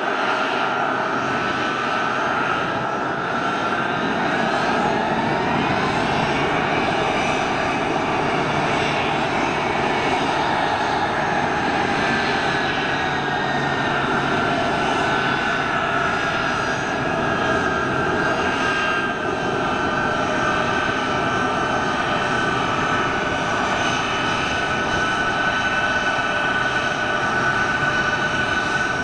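Boeing C-17 Globemaster III's four Pratt & Whitney F117 turbofan engines running at taxi power, a steady jet roar with a high whine on top. A few seconds in, the whine rises in pitch, then slowly falls back.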